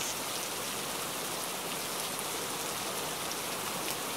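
Steady crackling hiss from an intro sound effect, with faint scattered crackles over it.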